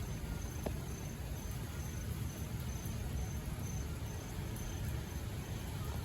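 A cricket chirping in a steady rhythm of short high-pitched chirps, about two a second, over a steady low rumble.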